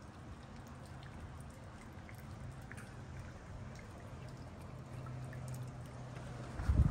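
Water flowing in a shallow stone-lined canal, a steady trickling rush. Near the end a brief low rumble of wind hits the microphone.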